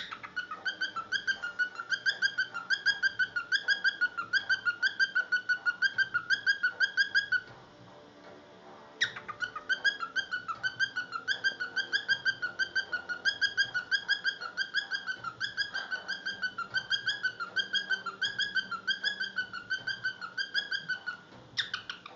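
Cockatiel whistling a rapid, pulsing, wavering warble that mimics a washing machine on spin cycle. It comes in two long runs with a pause of about a second and a half between them.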